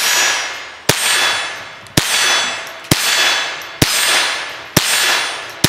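Henry AR-7 semi-automatic .22 Long Rifle firing six shots about a second apart, each crack followed by the ringing of a struck steel target.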